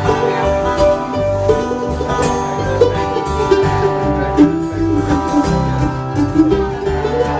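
Acoustic bluegrass string band playing an instrumental break, with banjo picking and guitar over a bass line that changes notes every half second or so.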